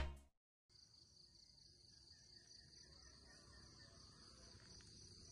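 Faint outdoor ambience: a steady high-pitched sound of insects, crickets or similar, over a low background rumble.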